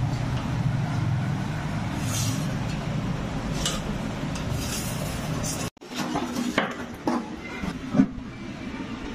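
Steady low background rumble with a few light clicks. After a sudden break about halfway, scattered clinks and knocks of charcoal burning and being handled, with one sharper knock near the end.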